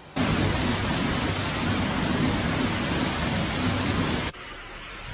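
Torrential rain pouring down: a dense, steady hiss with a low rumble beneath it. It cuts off abruptly about four seconds in, leaving a quieter rushing noise.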